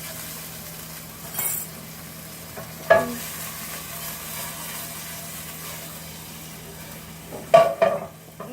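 Sausage sizzling in a frying pan with no oil, a steady hiss. A sharp knock comes about three seconds in, and a louder clatter near the end.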